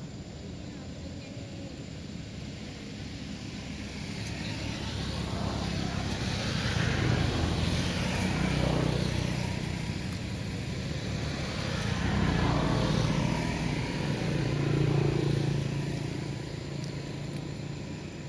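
Motor vehicles driving past, their engines swelling and fading twice over a steady road background.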